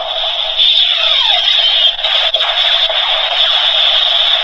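DX Seiken Swordriver toy belt playing its electronic sound effects and music through its small, tinny built-in speaker. The sound is dense and continuous, with a falling sweep about a second in.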